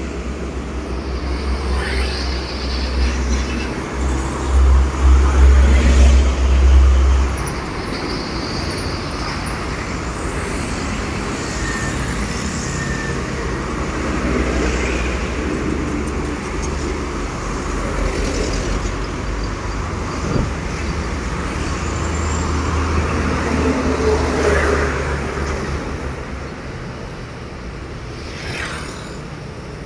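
Road traffic with heavy trucks going past: a deep engine rumble and tyre noise, loudest about four to seven seconds in and swelling again about two-thirds of the way through.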